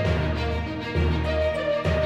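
Background music: sustained melodic notes over a bass line that changes about once a second.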